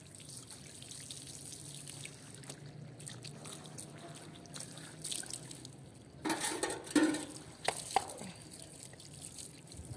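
Water from a garden hose spraying onto a rolled-up wet rug and running and dripping across a hard stone floor. Several louder knocks and splashes come about six to eight seconds in.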